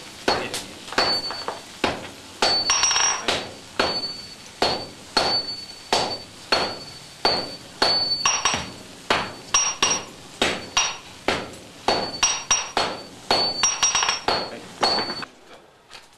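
Hammers striking a glowing block of tamahagane steel on an anvil in a steady rhythm of about two blows a second, each blow with a short high ring and sparks flying; the blows stop about a second before the end.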